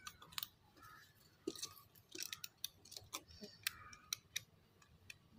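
A run of sharp, irregular clicks and taps as a TV's T-CON circuit board is handled and its flat ribbon cable is fitted into the connector.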